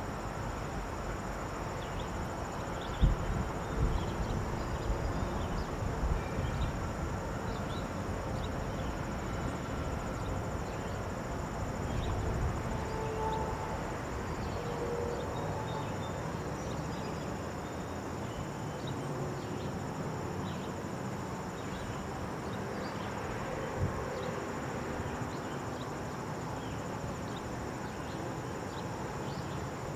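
Steady high-pitched buzzing of insects, crickets, over a low rumble. A few thumps come about three seconds in and again near 24 seconds.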